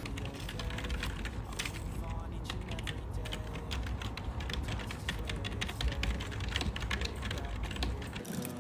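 Typing on a computer keyboard: a quick, irregular patter of key clicks.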